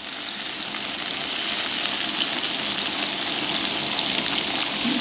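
Salmon and beef sizzling on the domed grill plate of an electric hot pot: a steady hiss with small crackling pops.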